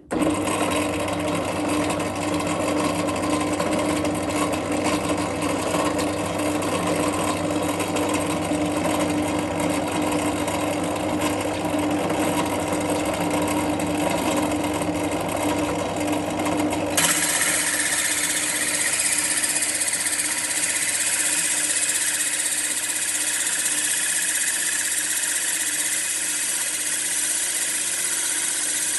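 Drill press running steadily with a diamond core bit, a held motor hum underneath. A little over halfway through the sound changes abruptly to a harsh, high grinding hiss as the wet bit cuts into the jasper pebble.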